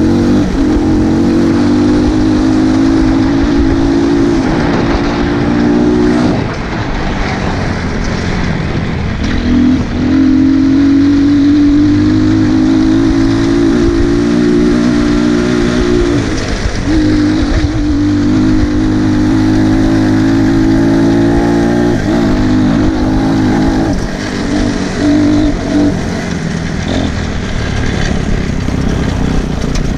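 200 cc dirt bike engine running hard at high revs in long held pulls, the pitch creeping up during each, with the revs dropping off briefly three times and coming in short choppy bursts of throttle toward the end.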